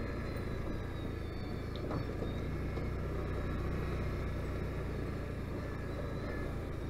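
Can-Am Outlander 570 ATV's V-twin engine running steadily under way, with one brief knock about two seconds in.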